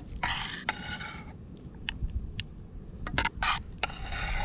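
Camp cooking gear being handled: sharp clicks and knocks with scraping, plus two rustling patches about a second long, one near the start and one near the end, over a low rumble.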